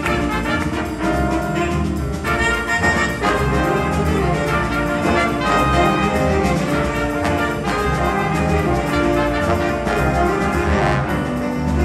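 Jazz big band playing: saxophones, trumpets and trombones in full ensemble, with piano and upright bass underneath.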